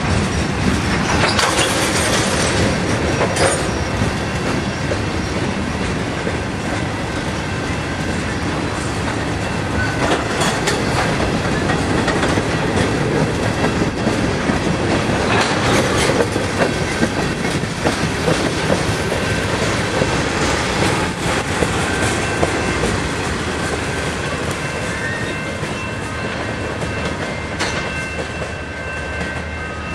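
Freight train tank cars rolling past close by: a steady rumble of steel wheels on the rails, broken by irregular clacks as wheels cross rail joints. A thin high wheel squeal runs through the second half.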